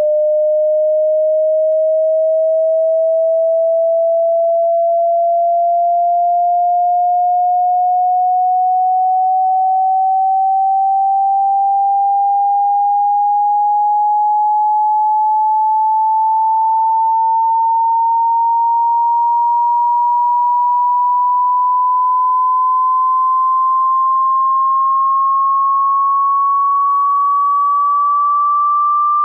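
Pure sine test tone for a hearing test, gliding slowly and evenly upward in pitch by about an octave, at a steady loudness.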